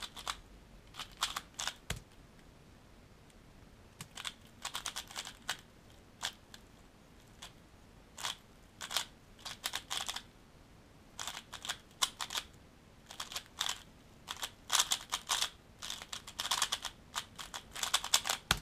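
Valk 3x3 speed cube being turned fast by hand: quick bursts of plastic clicks and clacks as the layers snap around, with brief pauses between runs of turns.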